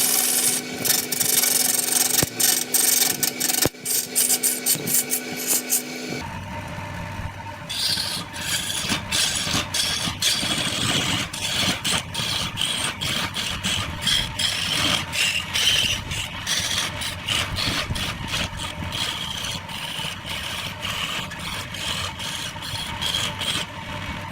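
Wood lathe running while a tool scrapes and rubs against the spinning wood, with a steady motor hum and scattered clicks. About six seconds in the sound changes abruptly to a deeper machine rumble with a rapid run of clicks.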